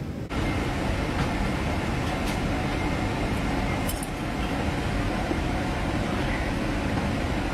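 Steady loud rumble and hiss of a moving vehicle heard from inside, jumping louder just after the start, with a few light clicks about one, two and four seconds in.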